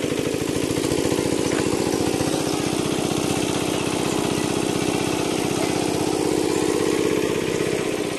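A small engine running steadily with a fast, even beat, fading slightly near the end.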